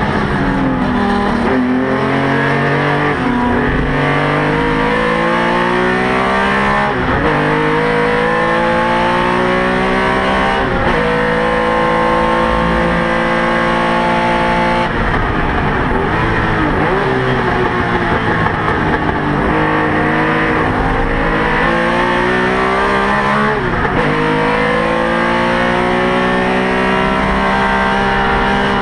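Porsche 911 RSR's flat-six engine heard from inside the race car at full throttle, its pitch climbing through the gears with a sharp drop at each gear change every few seconds. About halfway through it holds high and steady, then falls steeply as the car brakes and shifts down, before pulling up through the gears again.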